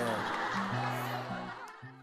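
Light background music, a few low notes changing in steps, fading out near the end, with a woman laughing under it in the first part.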